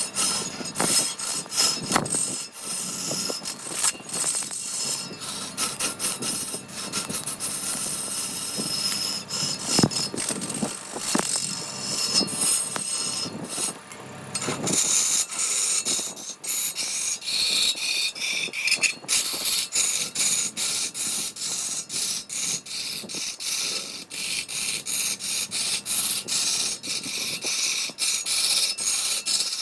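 Rapid, irregular rubbing and scraping strokes on wood, as in hand-working a wooden piece with an abrasive or rasp, changing in texture about halfway through.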